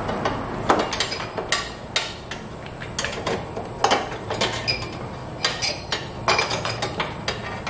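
Metal battery tie-down bar and its hardware clinking and knocking as they are worked into place around a car battery: an irregular scatter of sharp clinks, a few louder than the rest.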